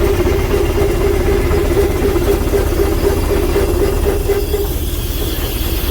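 A sawmill driven by a 1911 Avery 18 hp undermount double-cylinder steam engine, running steadily under load while sawing logs, with a steady hum over a low rumble. It begins to fade near the end.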